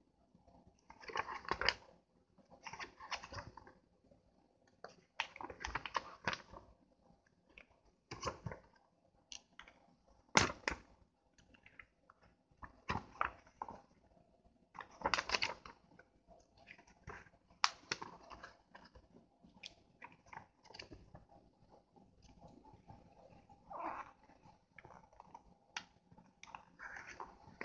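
Pages of a printed paperback manual turned by hand one after another: short paper rustles and flaps every second or two, with a few sharper snaps, the loudest about ten seconds in.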